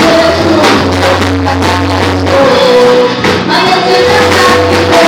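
Live gospel music played loud through a PA: a woman sings sustained, wavering lines into a microphone over a band with drum kit and a steady bass.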